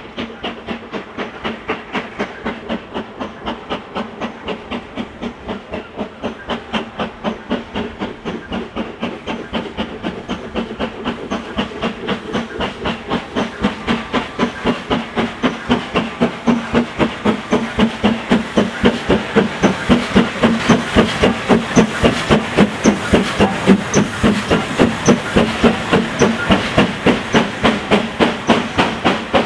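GWR King class No. 6024 King Edward I, a four-cylinder 4-6-0 steam locomotive, working hard as it takes its train away up a bank. A rapid, even beat of sharp exhaust chuffs over a steady hiss of steam grows louder as it approaches and is loudest about two-thirds of the way through.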